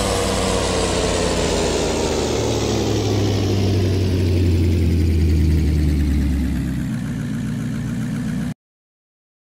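A vehicle engine running, its pitch falling slowly as the revs come down over several seconds, over a deep low rumble. The sound cuts off abruptly near the end.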